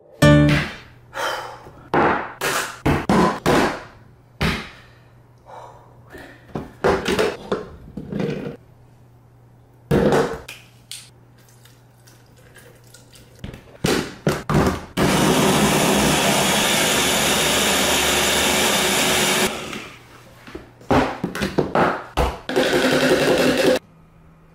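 Countertop blender running for about four and a half seconds, blending sliced mushrooms with liquid, then run again in short pulses near the end. Before that comes a run of separate knocks and clunks.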